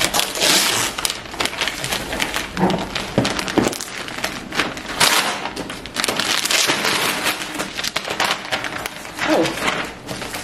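Brown paper packaging rustling and crinkling as a parcel is torn open and handled, a dense run of crackles throughout.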